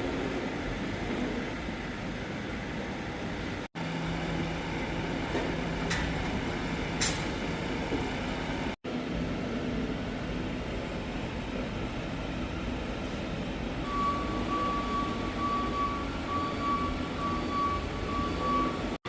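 Construction-site machinery and vehicle noise with a steady hum. In the last five seconds a vehicle's reversing alarm beeps over and over at one pitch.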